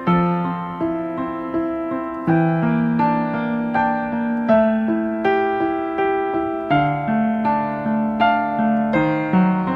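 Background music: slow, gentle piano chords with a new note struck roughly every three quarters of a second.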